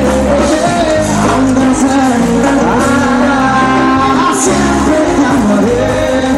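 Live cumbia band playing with a male lead vocal singing over steady bass notes.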